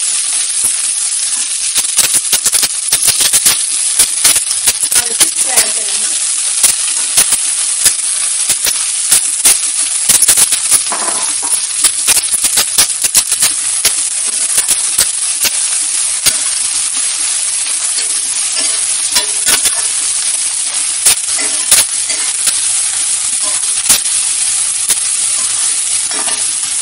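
Sliced onions sizzling in hot oil with mustard seeds in a stainless steel kadhai, stirred and scraped around the pan with a spatula. A steady frying hiss with frequent sharp clicks.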